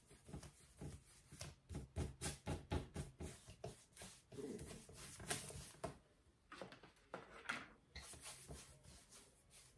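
Faint brushing of a paintbrush scrubbing acrylic paint across a canvas in quick back-and-forth horizontal strokes, about three soft strokes a second at its busiest.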